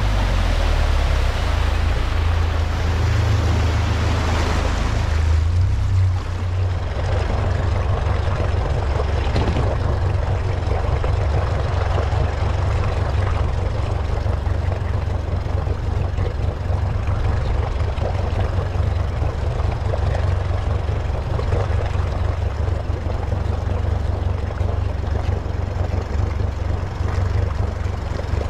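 Bass boat's outboard motor running steadily as a low rumble, mixed with the rush of wind and river water. A brighter hiss of wind and water in the first few seconds falls away at about six seconds.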